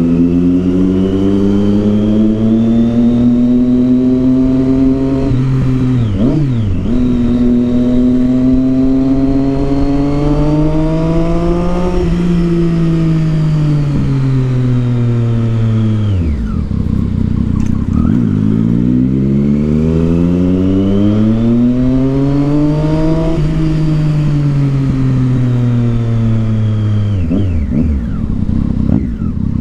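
Triumph Street Triple 675's inline three-cylinder engine running loud through a Yoshimura aftermarket exhaust under riding. The note climbs, drops at a gear change about five seconds in, and climbs again before falling away as the bike slows near the middle. It then rises once more and falls back to a low steady note near the end.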